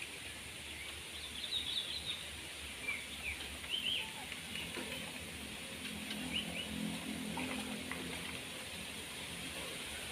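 Small birds chirping in scattered short calls over a steady outdoor hiss.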